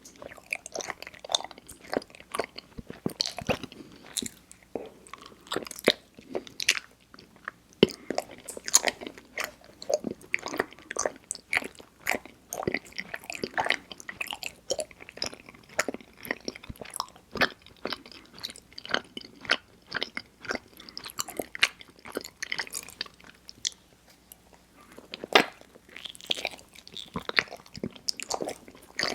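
Mouth sounds of someone biting and chewing mochi ice cream: a dense run of short, irregular clicks, with a brief lull near the end.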